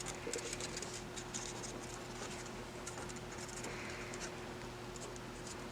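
Faint scattered crinkles and light scratches of a small square of origami paper being creased and flattened between the fingers, over a thin steady hum.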